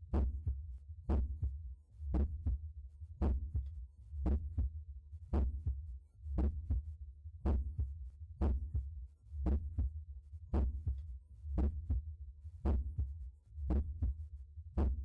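Heartbeat heard at the mitral area through a stethoscope: steady lub-dub pairs of heart sounds, a little under one beat a second, over a low rumble.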